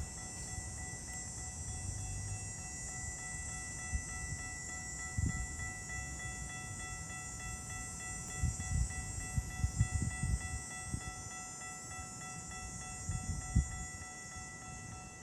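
GO Transit push-pull commuter train running: a steady high whine over a low rumble, with irregular low thumps around the middle and again near the end.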